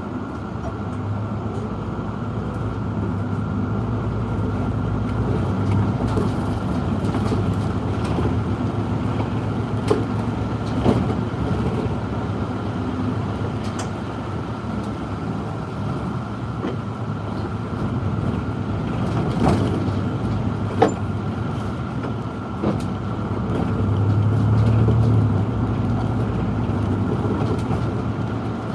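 City bus driving along a road, heard from the driver's cab: steady engine and tyre noise with a constant whine, scattered clicks and rattles, and the engine note growing louder for a few seconds near the end.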